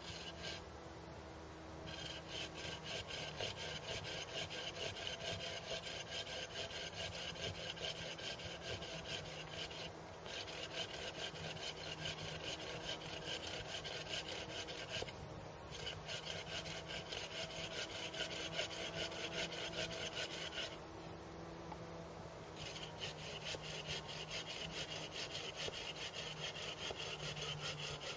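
Hand saw cutting into a wooden stick with steady back-and-forth strokes, about three a second, stopping briefly a few times, once for about two seconds.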